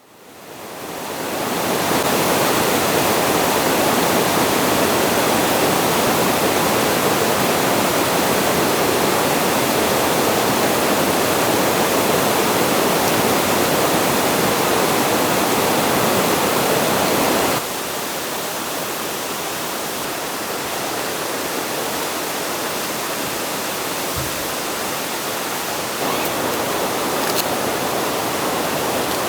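Steady rushing of flowing water, like a stream or small waterfall, fading in at the start. About two-thirds of the way in it cuts suddenly to a quieter, hissier stretch of the same kind of noise.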